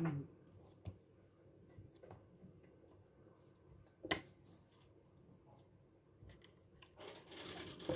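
Quiet room tone with scattered small clicks and taps, one sharp knock about four seconds in, and a short rustle near the end.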